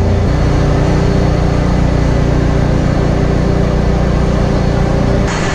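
Engine-room noise of a Wärtsilä RT-flex82T seven-cylinder two-stroke marine diesel main engine running: a loud, steady drone with a low hum. The sound changes abruptly near the end.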